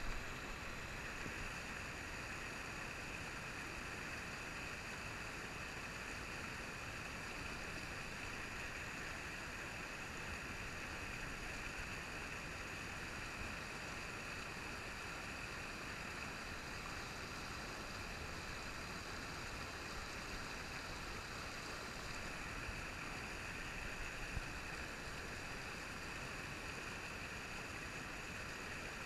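Steady rush of a shallow stream pouring over rocks in a riffle, an even hiss of moving water.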